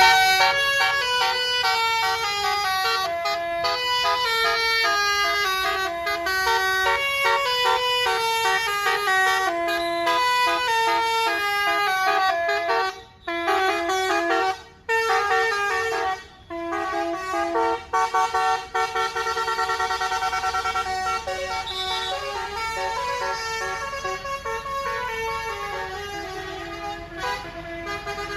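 Bus 'telolet' horn, a Basuri multi-tone air horn, playing a long melody note after note, with three short breaks about halfway through.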